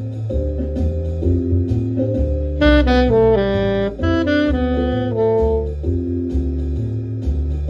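Alto saxophone improvising a jazz phrase over a backing track of bass and held chords. The sax comes in a little over two seconds in with a run of quick notes that falls in pitch, then rests for the last couple of seconds while the bass and chords carry on.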